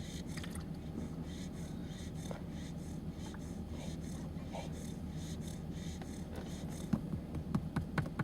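Faint snoring of a sleeping fox red Labrador puppy over a steady low hum. Several quick, sharp clicks or scratches come near the end.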